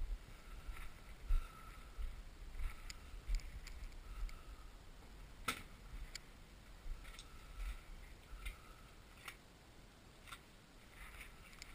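Scattered small clicks and knocks of gear and ammunition being handled at a shooting bench, with one sharper crack about five and a half seconds in, over a low, uneven rumble of wind on the microphone.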